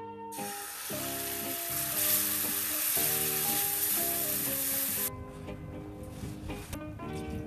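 A milky liquid hitting a hot frying pan and sizzling loudly as it is stirred with a silicone spatula; the sizzle starts just after the start and cuts off abruptly about five seconds in. Background music plays throughout.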